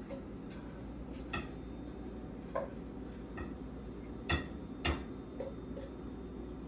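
Utensil tapping and clinking against dishware: scattered light taps, with two louder clinks a little past the middle that ring briefly.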